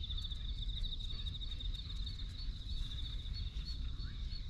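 Airport bird-deterrent loudspeaker giving a steady, high, rapidly pulsing tone to scare birds away, over a low rumble.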